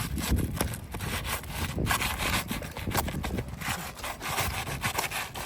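A tool scraping and rasping under asphalt roof shingles in irregular strokes, with small clicks, as the shingle nails are worked loose.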